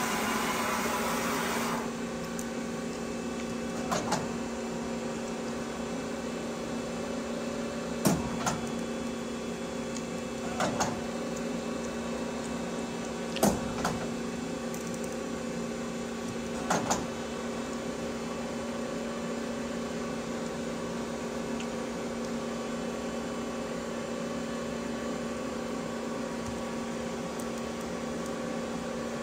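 Steady hum of the powered-up Sunfirm CHT 5680 CNC lathe standing idle. A hiss cuts off about two seconds in, and there are several short sharp clicks, some in pairs.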